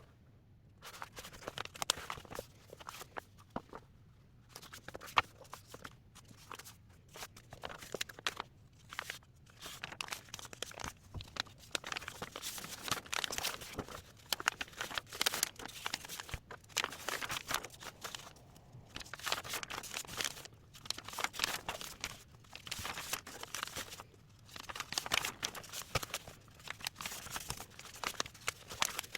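Irregular rustling and scratching in bursts a second or two long, with small sharp clicks, like paper being handled or written on.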